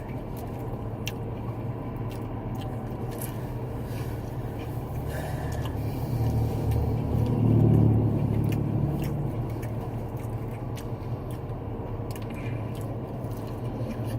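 Biting and chewing of fried fast food, heard as scattered small crunchy clicks over a steady low hum. The hum swells louder for a couple of seconds past the middle.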